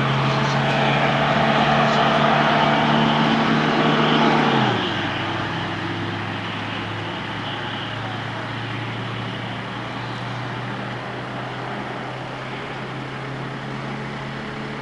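Fire engine's diesel engine running at raised revs, then easing down to a lower, steady speed about four and a half seconds in.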